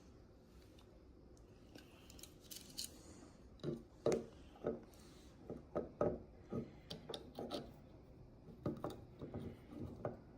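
Digital calipers and a plate being handled, with irregular small clicks, taps and knocks starting about two seconds in as the calipers are fitted to the plate to measure its thickness.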